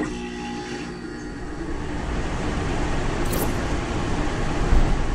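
Logo-intro sound effect: starts suddenly and swells as a dense low rumble with a few steady low tones, growing louder to a peak about four and three-quarter seconds in. A short high hiss passes through about three seconds in.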